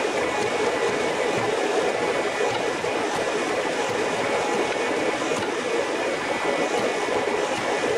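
Hydraulic forging press running steadily as it squeezes a red-hot steel billet: a continuous mechanical hum with a faint high whine.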